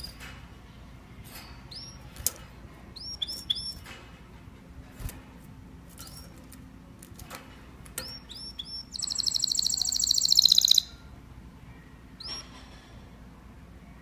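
Domestic canaries calling in short, scattered upswept chirps with a few sharp clicks between them. About nine seconds in, one bird breaks into a loud, fast trill lasting about two seconds.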